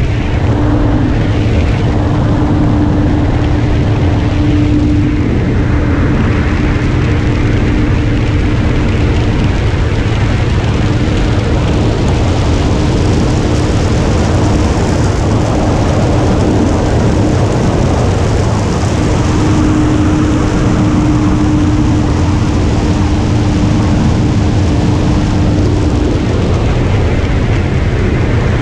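Carbon-Z Cessna 150 electric RC model seaplane in flight, heard from its own onboard camera: a steady motor-and-propeller hum under heavy wind rush on the microphone. The hum stops near the end while the wind noise goes on.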